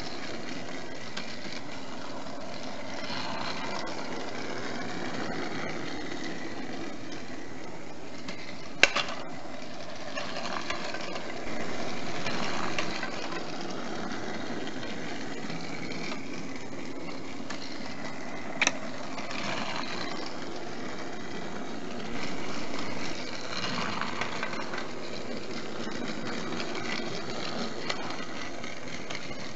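Battery-powered Trackmaster Thomas toy engine running around plastic track, its small motor and wheels whirring steadily, with two sharp clicks about ten seconds apart and two brief louder stretches.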